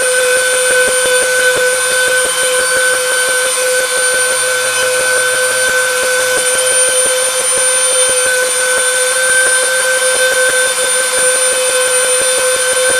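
Flex-shaft rotary tool running at a steady high-pitched whine, its small bit cutting into wood as the stars are engraved, with a rapid fine ticking from the bit on the wood.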